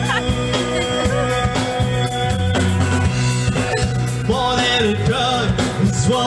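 Karaoke: a voice singing over a pop backing track with a steady bass line.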